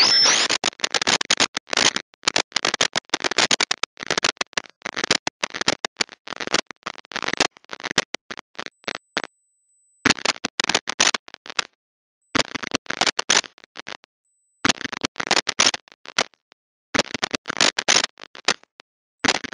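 Choppy bursts of harsh noise broken by frequent dropouts to dead silence, with a faint steady high whine throughout; the silent gaps grow longer about halfway through. A corrupted, glitching audio track.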